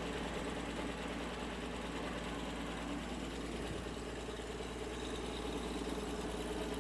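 1954 Ford 223 inline-six engine of an early Asplundh mobile wood chipper running at a steady speed, with its drive belts turning. It gives a steady hum with no change in pace.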